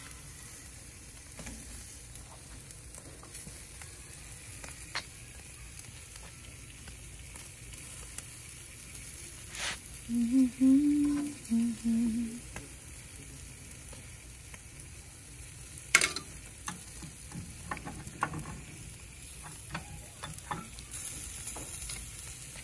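Mackerel scad grilling on a charcoal grill grate, sizzling faintly and steadily. About ten seconds in, a person hums briefly, which is the loudest sound. A sharp click comes about sixteen seconds in, followed by a few smaller ones, while the fish are turned with tongs.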